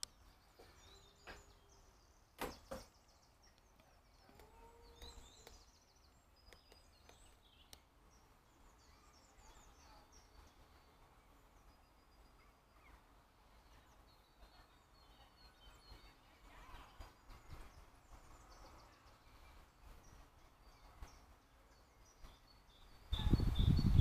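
Faint woodland birdsong: scattered high chirps and short calls from small birds. A few sharp clicks come early on, and a loud low rumble cuts in near the end.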